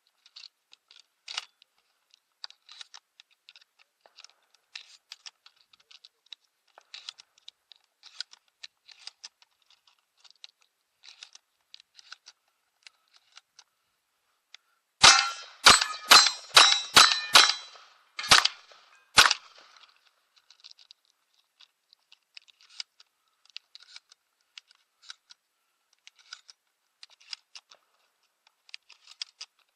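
Shotgun fired about eight times in quick succession about halfway through, roughly half a second apart, with slightly longer gaps before the last two. Faint scattered clicks and knocks run through the rest.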